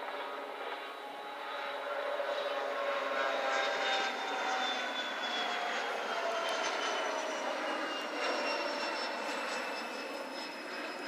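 A Bombardier CRJ-100 regional jet's two rear-mounted General Electric CF34 turbofans running at takeoff power as it lifts off and climbs away. A dense jet rush carries several whining tones that slowly drop in pitch as it passes; it grows louder about two seconds in and eases off near the end.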